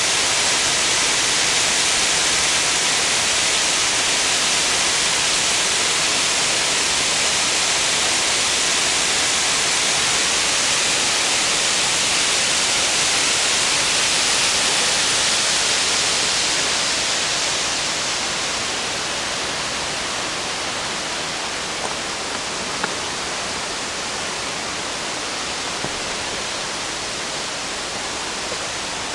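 Powerscourt Waterfall: water falling steadily, a loud even rushing that eases a little about eighteen seconds in.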